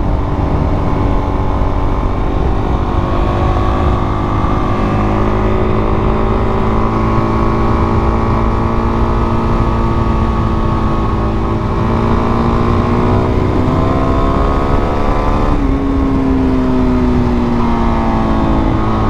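Dual-sport dirt bike's engine running under steady throttle while riding, with wind rumble on the microphone. About three-quarters of the way through, its pitch drops suddenly and falls away, then rises again near the end.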